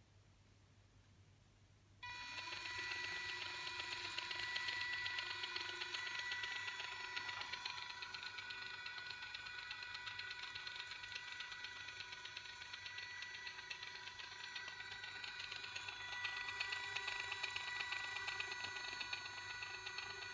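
Small electric motor driving a DIY camera slider through a pulley and toothed belt: a steady high whine with a fainter lower hum, starting suddenly about two seconds in and cutting off suddenly near the end.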